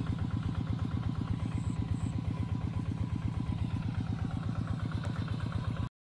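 A small engine running steadily at idle with an even, rapid beat; it cuts off suddenly near the end.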